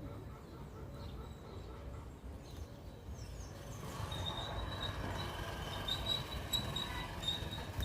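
Birds chirping, growing busier and louder from about four seconds in, with a repeated high note running over the top.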